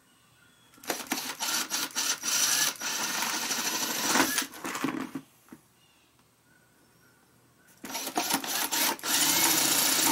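Cordless drill boring holes through the side of a soft plastic bucket, twice. Each run opens with a few short stop-start bursts on the trigger as the bit bites, then runs steadily for a couple of seconds while it cuts through.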